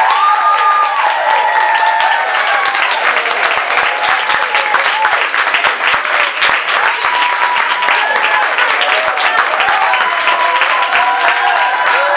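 Audience applauding, a dense steady clapping that holds through the whole stretch.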